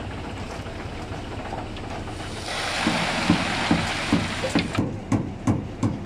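Construction-site background: an engine runs with a steady low hum, and a rushing hiss swells for about two seconds in the middle and then drops away.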